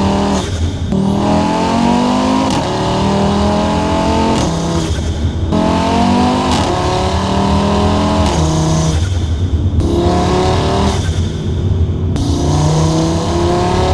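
Audi RS3 8Y's turbocharged 2.5-litre five-cylinder, running a 4-inch downpipe and 5-inch intake, accelerating hard through the gears: the engine note rises over about two seconds, breaks off at each upshift and climbs again, several times over.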